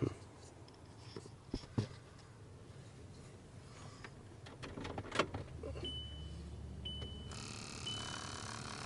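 A few light handling clicks, then a high warning chime about once a second. Near the end the Mk5 Jetta's recirculation flap servo motor starts running with a steady whir. It does not sound healthy: the servo is failing and looks seized.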